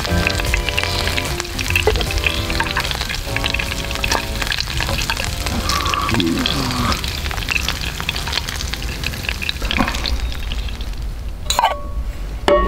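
Chicken pieces sizzling in hot oil in a small skillet, with short clicks of metal tongs against the pan as the pieces are lifted out.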